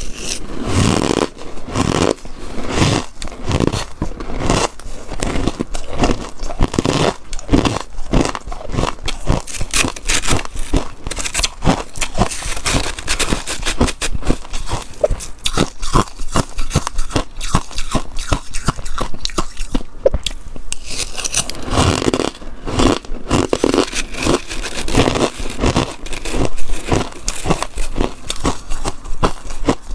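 A person biting and chewing freezer frost: a continuous run of crisp crunches, several a second.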